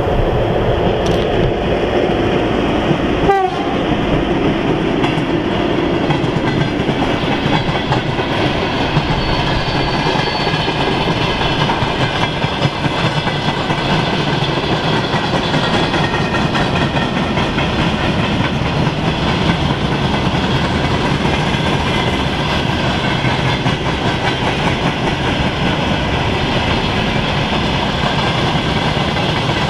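Freight train hauled by a VL11.8 electric locomotive rolling past, its wagons' wheels making a loud, steady rumble with clickety-clack on the rail joints.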